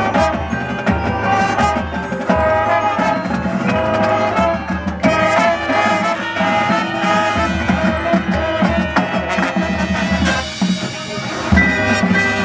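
High school marching band playing: brass instruments carry the melody over snare and bass drums.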